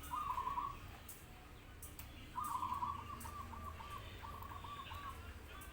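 Doves cooing: a short rolling trill right at the start, then, from about two and a half seconds in, a run of about eight rolling, arched coo notes.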